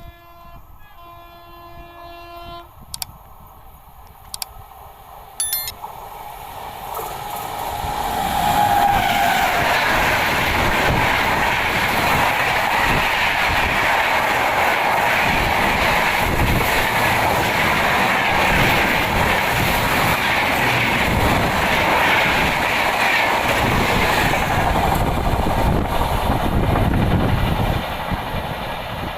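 A horn sounds briefly near the start. Then an express train of LHB coaches approaches and rushes past at speed for about twenty seconds, with wheels clattering rhythmically over the rail joints, before the noise drops off sharply near the end.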